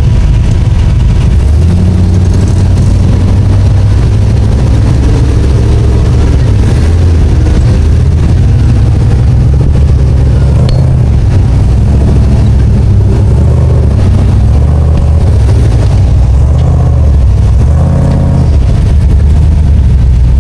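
Off-road vehicle engine running at low speed, its pitch rising and falling several times as the throttle is worked.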